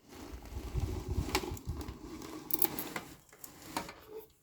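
Handling noise from a loudspeaker being taken apart: rustling and low bumps with a few sharp clicks.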